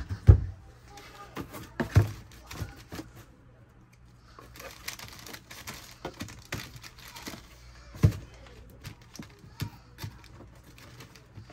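Sneakers and a cardboard shoebox being handled during packing: a few sharp thumps as things are set down in the box, just after the start, about two seconds in and about eight seconds in, with wrapping crinkling in between.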